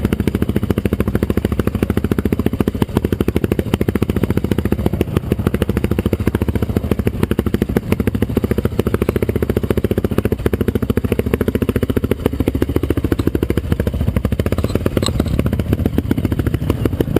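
Off-road trail motorcycle engine running under way, a fast, steady exhaust pulse whose pitch rises and falls slightly.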